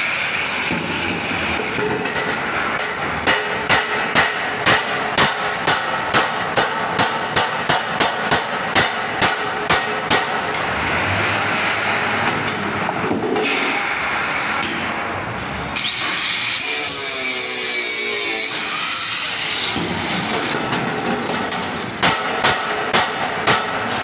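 Claw hammer striking a galvanized steel cable tray, a steady series of blows about two a second, pausing in the middle and resuming near the end, as the cut flaps at the joint are beaten into a bend. A steady background noise runs underneath.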